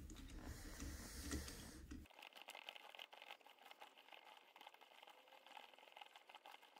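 Faint clicks of steel parts being handled, a chain sprocket and hex bolt on a bearing hub, for about two seconds, then near silence.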